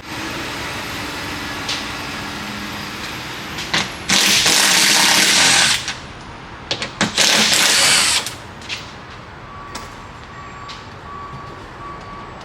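A power tool runs in two loud bursts, the first lasting under two seconds and the second about a second, with a few clicks in between.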